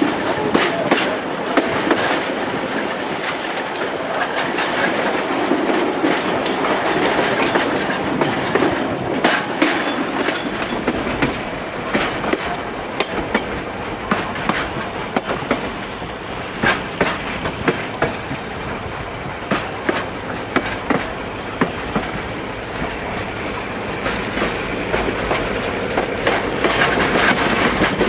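Passenger train rolling along the track, heard from aboard a coach: a steady rumble with repeated clicks of the wheels crossing rail joints. The low rumble grows louder about ten seconds in.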